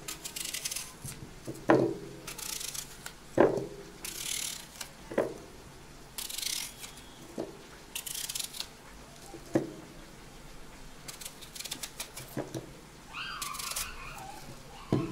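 A knife cutting through a crisp green apple into wedges: short crunching cuts every couple of seconds, each followed by a light clink as the slice drops into a small ceramic bowl.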